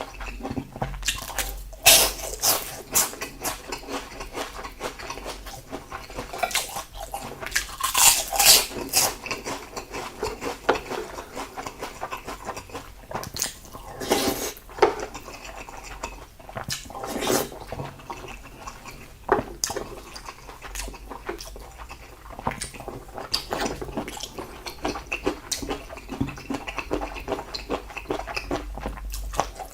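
Close-miked wet chewing and lip-smacking while eating salted seafood (jeotgal), an irregular run of sticky mouth clicks with a few louder smacks, around two seconds in, eight seconds in and near the middle.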